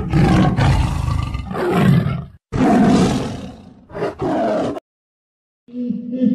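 Big cat roars: one long roar, a second roar, and a short third burst, loud and rough. After a pause of about a second, music begins near the end.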